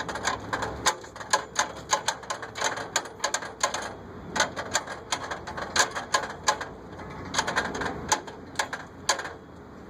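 Irregular, rapid clicking and clacking of a plastic toy being handled and tapped, several clicks a second, easing off near the end.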